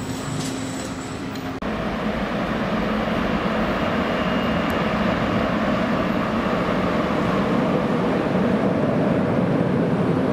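A CP 5600 series electric locomotive approaches through an underground station, hauling Corail carriages, its rumble building steadily louder. It is preceded by a second and a half of a distant Alfa Pendular tilting train passing in the open, with a steady hum, which cuts off abruptly.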